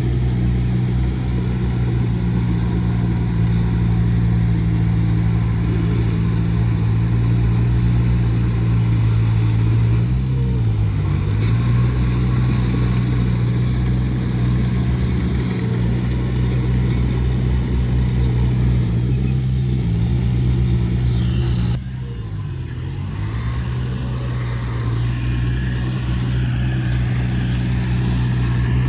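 Heavy diesel engine of earthmoving machinery running steadily under power. Its note dips and recovers twice, about a third of the way in and again about three-quarters in. After the second dip it runs somewhat quieter.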